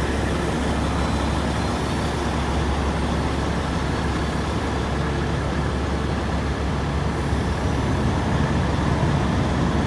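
Peterbilt 389 semi truck's diesel engine running steadily, a constant low drone with no change in pitch.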